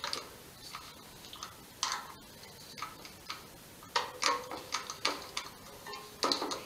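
Irregular metallic clicks and light clinks of a bicycle's front-wheel hardware being handled, as the disc brake rotor and axle parts are worked into place in the fork; a few clicks ring briefly, with a cluster of them a little past the middle.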